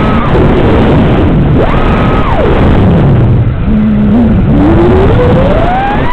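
FPV quadcopter's electric motors and propellers whining over a loud buzzing roar, the pitch climbing to a high held note and dropping back as the throttle is pushed and released, about three times.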